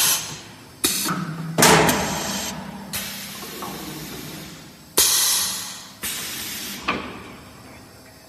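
CNC wood lathe's automatic loading and unloading mechanism cycling: a series of about seven sudden clunks and bangs, several trailing off in a fading hiss, as a workpiece is released and a new blank is moved into place and clamped.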